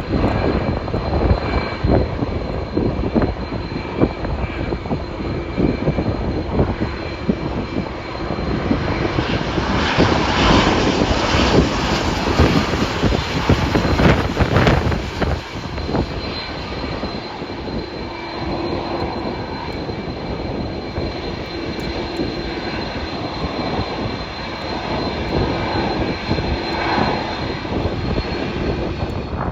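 Jet airliner engines heard close, a broad rumble with a thin steady high whine over it, growing loudest in the middle and easing off toward the end.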